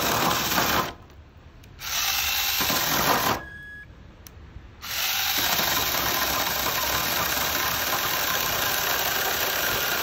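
KY255 cordless mini pruning chainsaw with a brushless motor, its chain cutting through a log. It cuts out about a second in and again about three and a half seconds in, each time for a second or so, then picks up again and runs steadily through the cut; the stop is its overload protection shutting the motor off so that it does not burn.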